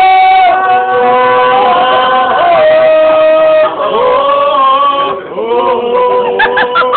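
Two men yodelling loudly together: long held notes that jump suddenly between low and high pitch, breaking off briefly about five seconds in, then a quick run of short notes near the end.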